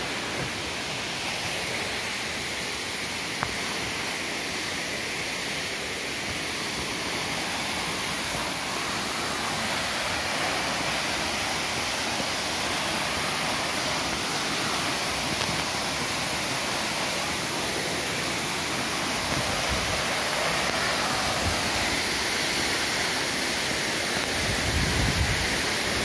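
Waterfall: a steady rush of falling water, slowly getting louder.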